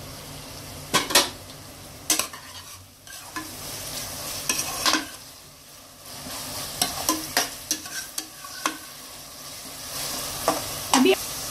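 Sliced onions, ginger-garlic paste and green chillies frying and sizzling in oil in an aluminium pressure cooker, while a steel spoon stirs them, scraping and knocking against the pot many times.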